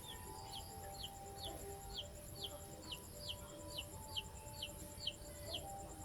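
A bird calling a long run of short, falling notes, about two a second. Soft background music with held notes plays underneath.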